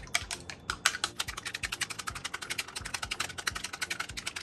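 Long wooden cooking chopsticks beating eggs in a measuring jug: a fast, even clicking of the chopsticks against the jug's sides, about ten clicks a second.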